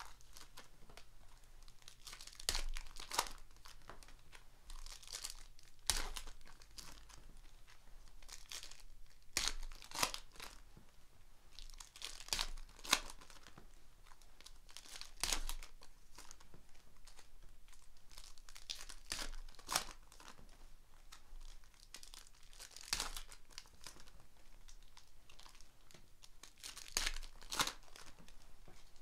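Foil wrappers of Panini NBA Hoops trading-card packs being torn open and crinkled by hand, in irregular short crackling bursts every second or two, with the cards handled between them.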